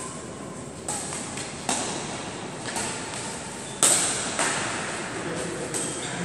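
Badminton rackets striking a shuttlecock in a doubles rally, sharp hits about one a second with the loudest about four seconds in, each with a short echo in the hall.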